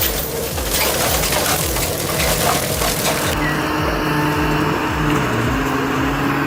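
Heavy machinery working through wood and brush: an engine running under a noisy crunching and crackling, which gives way about three seconds in to a steadier engine drone.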